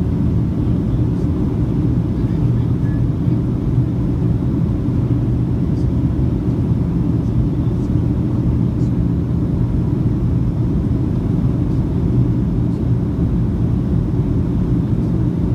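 Steady low roar of jet airliner cabin noise in flight, the engines and rushing air heard inside the cabin, with a steady low hum underneath.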